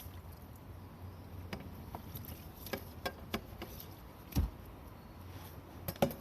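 Scattered light clicks and knocks over a low steady hum, with a dull thump about four and a half seconds in and two sharper clicks near the end.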